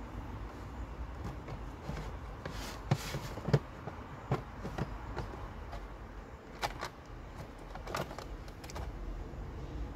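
A scatter of light clicks and knocks, the loudest two about three seconds in, as fishing tackle and bait are handled at the water's edge, over a steady low background noise.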